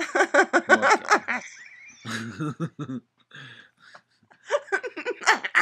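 A person laughing and making wordless vocal noises in short bursts: a quick run of pulses at the start, a lower stretch about two seconds in, and more bursts near the end.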